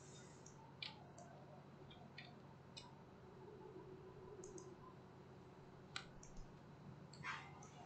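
Faint, scattered clicks of a computer mouse, half a dozen or so spread a second or two apart, over a low steady room hum.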